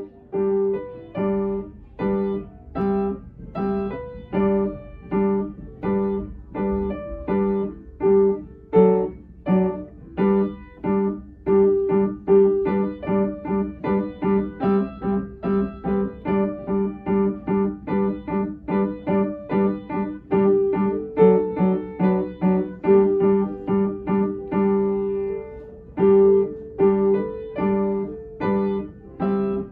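Piano playing a simple melody, the notes struck evenly at about two a second, with no singing.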